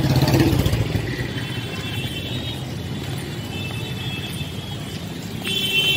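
Road traffic in a jam: engines running and tyre noise as a steady rumble, with car horns honking several times, the last just before the end.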